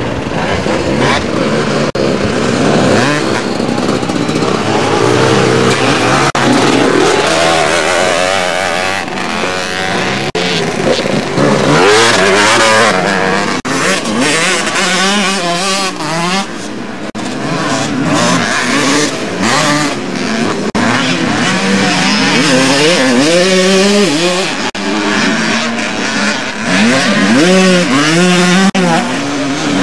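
Several motocross bike engines revving hard on the track, their pitch climbing and falling again and again as riders accelerate, shift and back off, with engines overlapping as they pass.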